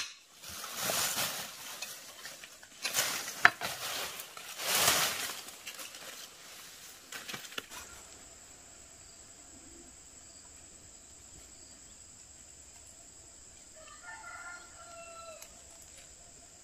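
A rooster crows once, about fourteen seconds in, over a steady high chirring of insects. Before that, in the first five seconds, come three loud rustling bursts.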